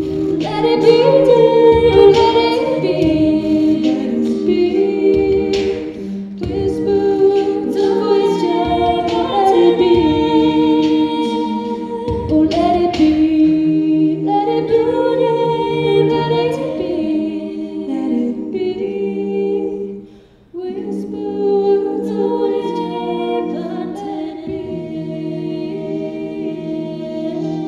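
Female a cappella group singing sustained chords in close harmony, amplified through handheld microphones. The singing breaks off briefly about twenty seconds in, then the chords resume.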